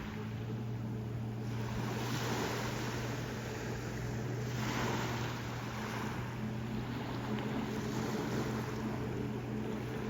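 Sea waves washing in again and again, each wash swelling about every two seconds, over a steady low motor hum.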